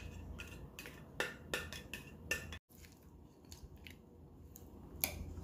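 Light clicks and taps of kitchen handling: pepper shaken from a container over chicken pieces in a ceramic dish, then a spatula knocking against the dish. The sound drops out for an instant about halfway through.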